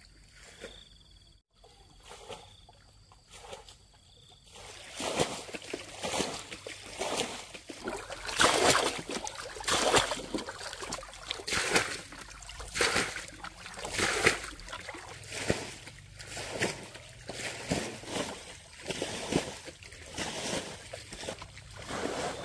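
Faint high chirps at first, then shallow pond water splashing and sloshing in a steady rhythm, about one splash every second and a bit, starting about four and a half seconds in.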